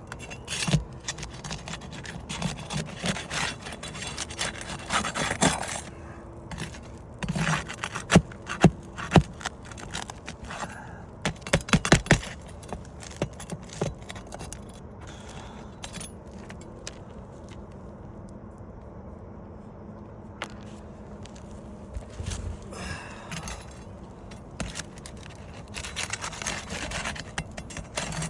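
Asphalt roof shingles being scraped and pried loose, with runs of scraping and several sharp clicks and snaps, as the sealant bonds between the tabs are broken to free a shingle.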